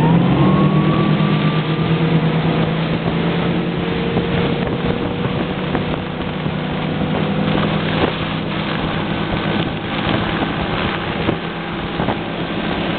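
Tow boat's engine accelerating hard, its pitch climbing over about the first second, then running steadily at high revs to pull a barefoot water-skier, with wind and water rushing. A few short knocks come through later on.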